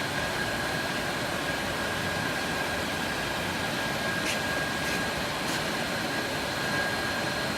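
Automatic shrink-wrapping machine running with a steady whir and a thin, high steady whine, with three faint light clicks about half a second apart near the middle.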